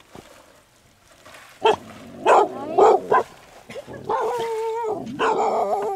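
A dog barking four times in quick succession, then giving two long, wavering whining cries.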